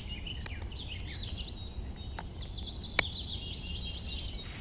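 Small birds chirping and calling over and over in quick, high-pitched phrases, over a steady low outdoor rumble. A single sharp click about three seconds in.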